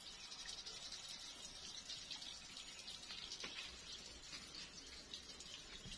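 Faint, steady, high-pitched chirring of insects in the grass, with a few soft clicks.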